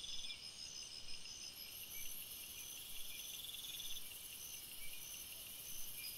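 Faint crickets chirping at night, several high-pitched trills repeating steadily.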